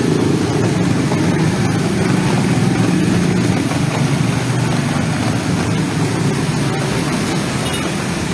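Busy street traffic, mostly motorcycles and scooters with a few cars and a truck, passing steadily on a wet road: a continuous low drone of engines with tyre noise on the wet surface.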